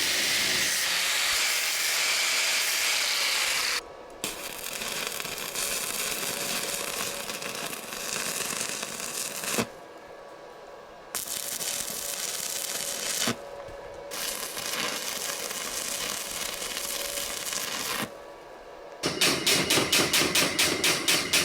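Welding a steel bracket, in several runs of a few seconds each with short pauses between. Near the end comes a fast run of sharp metal taps.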